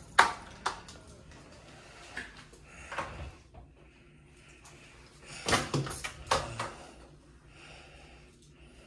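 Louvered wooden closet door being opened, with several knocks and clatters of the door and its fittings. The loudest come in a cluster about five and a half seconds in.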